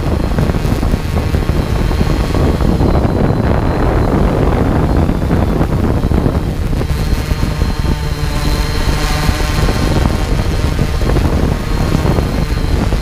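Rotors of a small unmanned aircraft running steadily close by, a dense rumble with a thin high whine over it, the rotor wash buffeting the microphone.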